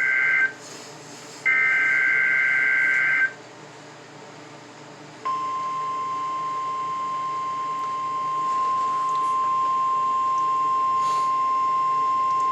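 NOAA Weather Radio emergency alert, heard through a weather radio receiver's speaker: the end of the buzzing two-tone SAME digital header bursts (one ending just after the start, another from about 1.5 to 3.3 seconds), then from about 5 seconds a steady, piercing 1050 Hz warning alarm tone over faint static hiss.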